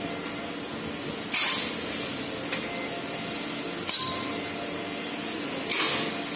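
High-frequency (RF) plastic welding machine cycling on clear plastic tubing: a sharp hissing burst about every two and a half seconds, three in all, each fading within about half a second, over a steady machine hum.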